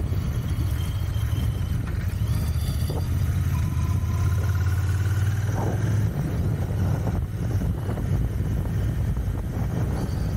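Royal Enfield Continental GT 650's parallel-twin engine running under way on a new bike being run in. Its low note holds steady, then turns rougher and less even about six seconds in.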